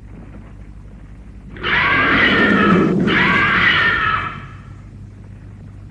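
A tokusatsu monster's screeching cry: two long, pitched calls with a short break between them, starting about a second and a half in. It is a cry of pain as its eye is jabbed. A faint steady hum from the old soundtrack runs underneath.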